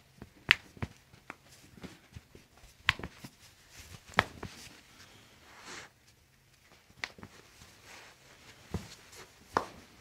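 Toe joints popping as a chiropractor manipulates the toes one after another: several sharp, separate cracks at irregular intervals, with soft handling noise between.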